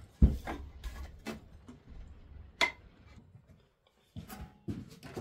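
Irregular hard knocks and clicks of wooden workpieces being handled and set down: a loud knock just after the start, a sharp click past halfway, and a quick run of knocks near the end.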